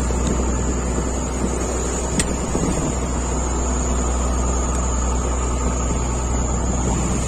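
A fishing boat's engine running steadily under way, a constant low hum, with water rushing past the hull.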